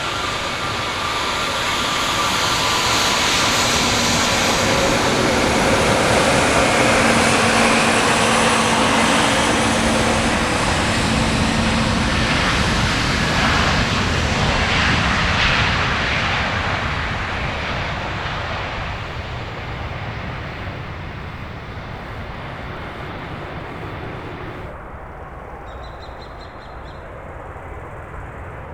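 Jet airliner's engines passing by: a wide roar that builds over the first several seconds, peaks, and then fades away. Near the end the high hiss cuts off abruptly, leaving a duller rumble.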